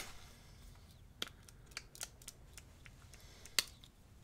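Scattered small clicks and taps from handling a Rituals body mist spray bottle, with the sharpest click about three and a half seconds in.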